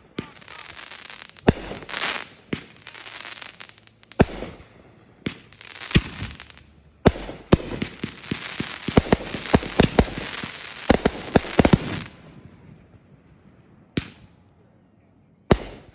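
Fireworks going off: sharp bangs with crackling between them, then a dense run of rapid crackling pops in the middle, followed by a couple of single bangs near the end.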